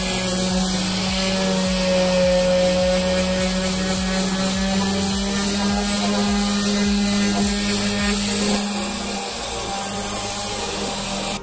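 Corded random orbital sander running steadily with a constant hum, its pad rubbing across the painted seat of a wooden stool and sanding the paint back.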